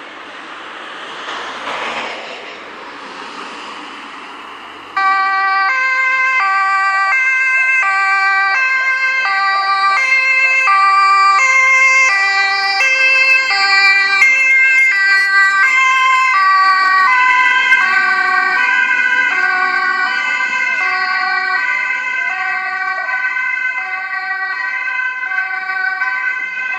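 Ambulance two-tone siren, switching back and forth between two pitches, starting suddenly about five seconds in and staying loud. Before it, a rushing noise swells and fades.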